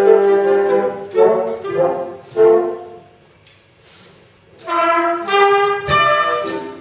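Brass band playing: a held chord, a few short detached phrases, a near pause of about a second and a half, then the band comes back in with loud brass notes and a sharp hit.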